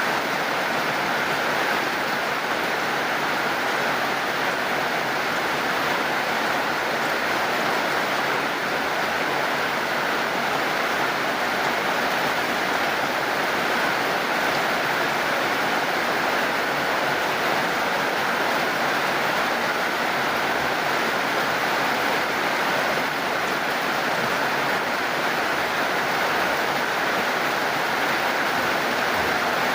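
Steady rain falling, an even continuous hiss with no separate drops or thunder standing out.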